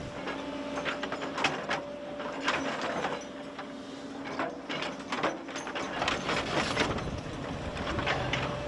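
Crawler excavator working on earth: its engine running with a steady hum under irregular metallic clanks and scrapes as the bucket works the soil.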